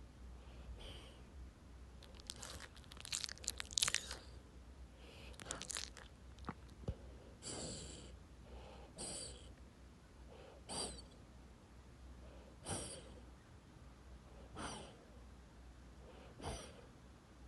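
A sleeping dog snoring: soft, whistling breaths about every two seconds through the second half. Before them, a few seconds of sharp crackling clicks, loudest around four seconds in.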